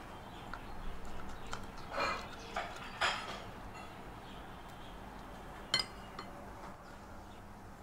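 Metal spoon scraping soft, sticky wood apple pulp out of the fruit's hard woody shell: a few short scrapes, with a light clink of the spoon against the plate near the end.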